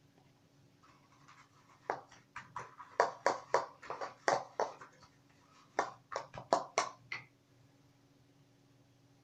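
Hands handling hair-dye supplies: a quick, irregular run of sharp taps and clacks that starts about two seconds in and stops after about five seconds, over a faint steady hum.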